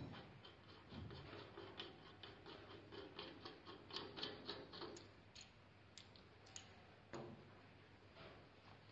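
Faint, quick metal clicks and ticks, several a second for a few seconds and then a few scattered ones, as a threaded end fitting is worked off the stainless-steel tube of a foam-sprayer transfer pump by hand.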